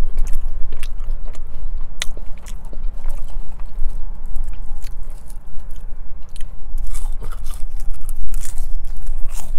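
Close-miked chewing and biting of fast-food french fries, with irregular crunches and mouth clicks.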